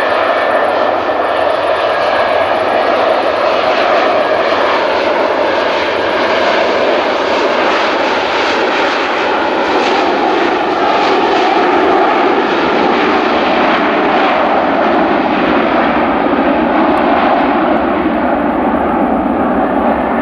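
McDonnell Douglas MD-82 airliner's rear-mounted Pratt & Whitney JT8D turbofan engines, loud and steady as the jet rolls along the runway past the listener. The sound thins slightly near the end as it moves away.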